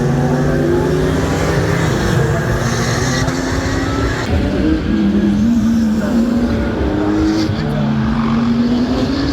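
GT3 race car engines running hard at high revs, their pitch dropping and climbing again as they shift gears.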